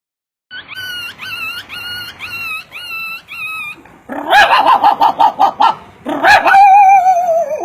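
A man imitating a dog with his voice. First comes a run of about seven short, evenly spaced whimpers, then louder yelps and barks, ending in a long wavering whine.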